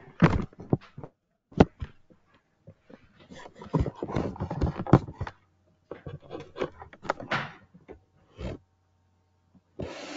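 Typing on a computer keyboard: scattered key clicks, with a quick run of keystrokes in the middle, over a faint steady hum.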